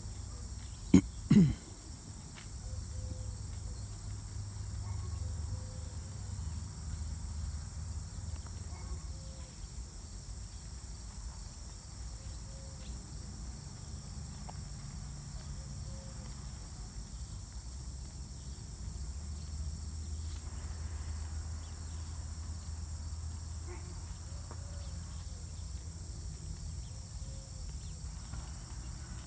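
Steady high-pitched insect chorus, several constant shrill tones held without a break, over a low rumble. Two brief loud knocks about a second in.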